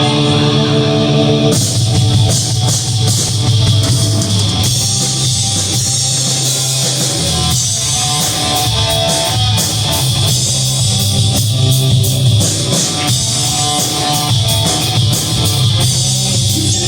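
Live rock band playing: distorted electric guitar holds chords, and the drum kit and cymbals come in about a second and a half in, carrying on with a steady beat.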